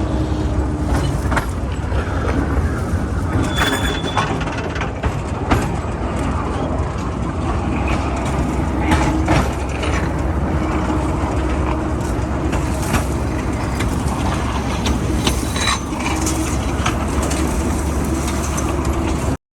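Steady low rumble of a moving vehicle, with scattered knocks and rattles; it cuts off suddenly near the end.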